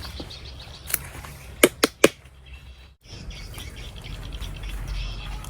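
Four sharp clicks or taps: one about a second in, then three in quick succession about half a second later. Birds chirp faintly in the background.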